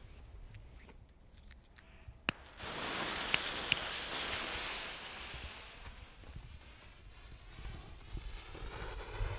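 A sharp click, then the fuse of a Funke silver fountain firework catches and burns with a sputtering hiss and two sharp cracks. Near the end the fountain starts spraying sparks with a growing hiss.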